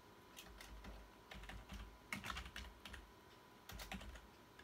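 Faint typing on a PC keyboard: irregular key clicks in short runs.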